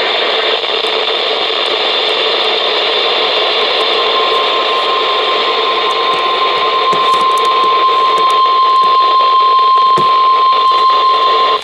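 NOAA Weather Radio reception full of static hiss; about four seconds in, the steady single-pitch 1050 Hz warning alarm tone starts and holds until near the end, signalling that a warning is about to be read.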